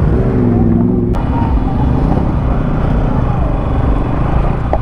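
Bajaj Pulsar motorcycle engine running at low speed, heard close from the bike itself as it rolls slowly along.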